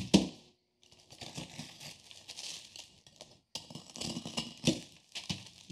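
Pumice rock crumbling and grating as it is worked by gloved hands on a paper sheet, with a few sharp taps in the second half.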